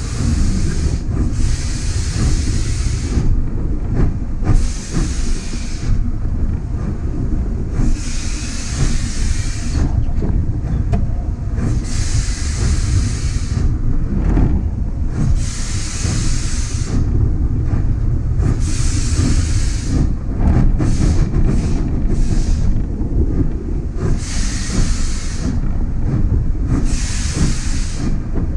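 Ex-South African Railways 24 Class Berkshire (2-8-4) steam locomotive under way, heard from its tender: a steady heavy rumble from the running gear and exhaust, with bursts of steam hiss coming and going every few seconds.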